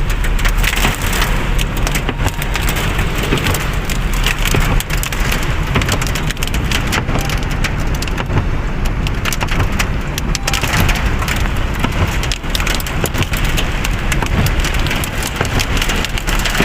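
Heavy rain and hail drumming on a small car's roof and windscreen, heard from inside the cabin: a dense rapid patter of sharp hits over a steady rush, with the car's low running rumble underneath.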